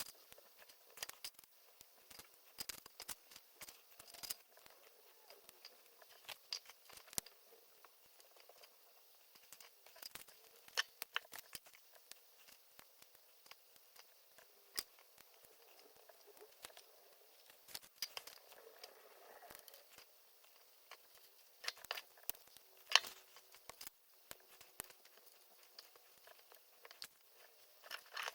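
LEGO bricks being handled and pressed together: scattered small plastic clicks and snaps at an irregular pace, a few sharper ones now and then.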